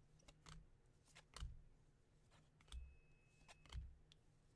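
Faint clicks and soft taps of baseball trading cards being flipped through and set down by hand, a few scattered strokes.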